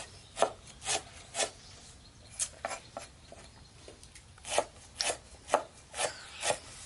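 Rhythmic scraping strokes by hand, about two a second, in three short runs with brief pauses between them.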